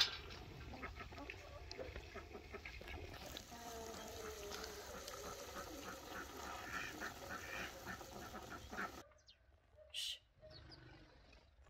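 Domestic ducks quacking in a farmyard, a run of short calls, that cuts off abruptly about nine seconds in.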